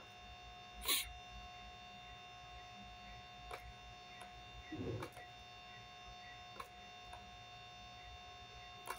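Steady electrical hum and whine from the recording setup, with a few clicks: a sharp one about a second in and fainter ones later. A short low sound comes just before the middle.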